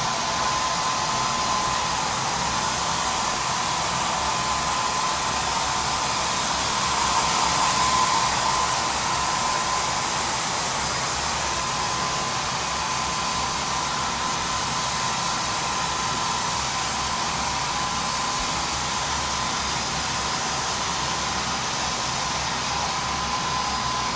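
Holistic Cure Dryer Rp hair dryer running on its red high-airflow mode, drying long hair: a loud, steady rush of air with a high whine, swelling slightly about a third of the way in.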